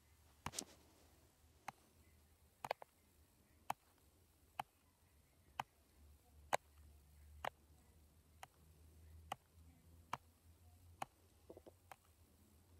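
Faint sharp clicks, about one a second and slightly uneven, over a low steady hum.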